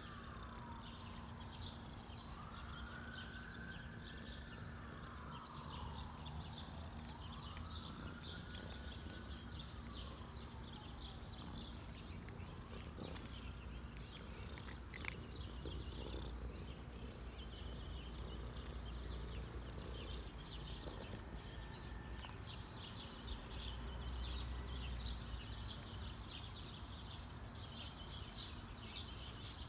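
A cat purring as a steady low rumble while it is stroked. A siren wails up and down several times in the first dozen seconds, and birds chirp from about halfway on.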